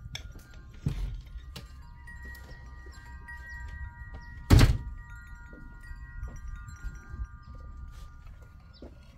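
Wind chimes ringing, several tones overlapping and held for seconds, with light clinks of a metal spoon against a glass jar and ceramic mugs. A dull thump about four and a half seconds in is the loudest sound.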